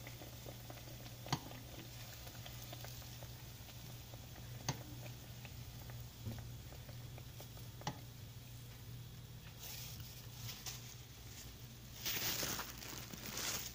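Plantain slices frying in shallow hot oil, a faint steady sizzle, broken by three sharp clicks of metal tongs against the pan. A louder burst of noise comes near the end.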